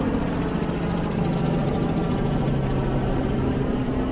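Helicopter engine and rotor drone, a steady hum whose pitch sinks slowly as it passes.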